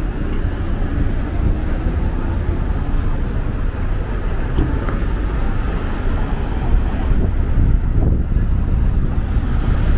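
City street ambience: road traffic running past as a steady, even rumble.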